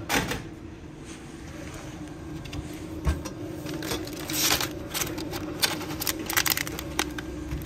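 Plastic clamshell crepe pack being handled and pulled out through a vending machine's pickup flap: sharp clicks and crinkles of the plastic and a knock of the flap at the start, with a flurry of clicks near the end. A steady low hum runs underneath.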